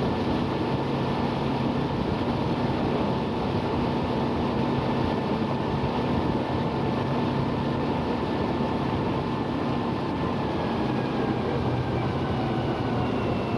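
Tour boat's engine running steadily, a constant drone with a faint higher whine.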